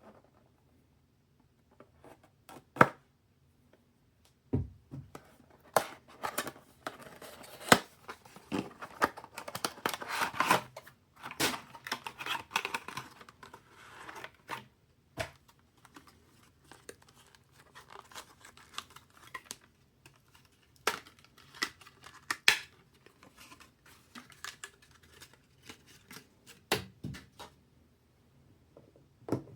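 Packaging being torn open and crinkled while PC parts are unboxed by hand. Irregular sharp clicks and knocks come throughout, with longer rustling stretches in the first half and again near the end.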